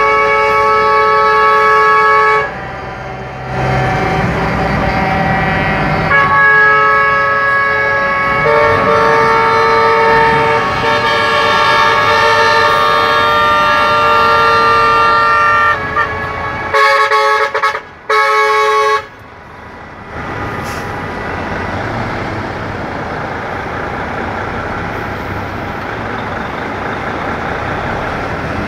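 Semi-truck air horns sounding in long blasts of several pitches at once, broken off and restarted, over the diesel engines of the passing tractor units. After a few short blasts about two-thirds of the way through, the horns stop and only the trucks' engine and road noise is left.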